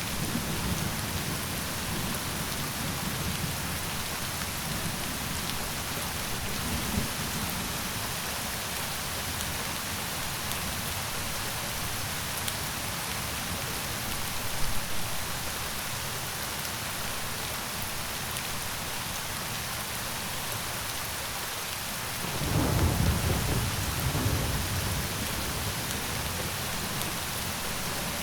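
Steady, even rain, with low rumbles of thunder: brief ones now and then and a longer, louder rumble about three-quarters of the way through.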